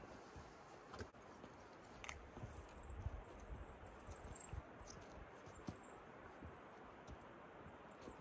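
Quiet outdoor ambience with a run of faint, high-pitched chirps from a small animal: several short notes in a row starting about two and a half seconds in, along with a couple of light clicks.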